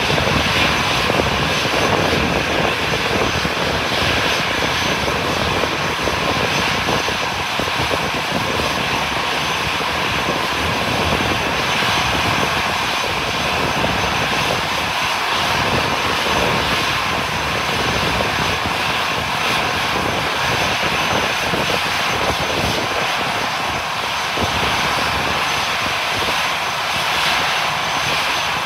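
Airplane engines running steadily: a loud, continuous noise with a thin high whine held throughout.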